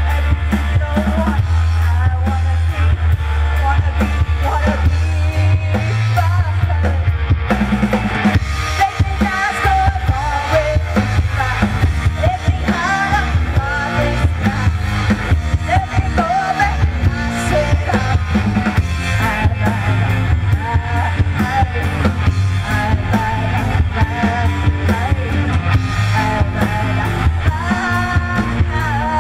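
Live rock band playing: a woman singing into a microphone over a drum kit and electric guitar, with heavy low end.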